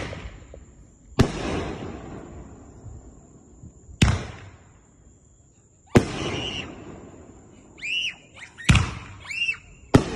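Shells from a Phantom Fireworks 3-inch brocade finale rack firing and bursting overhead: about six sharp bangs spaced one to three seconds apart, each trailing off in a long echo.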